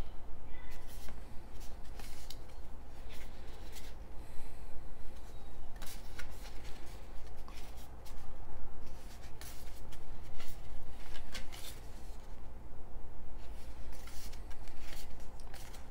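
Small cardstock lobby cards being leafed through by hand, one card slid off the stack and moved behind the others at a time: irregular paper rustles, rubs and light flicks.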